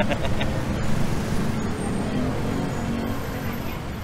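Moving jeepney heard from its rear step: a steady low rumble of engine and road noise amid city traffic.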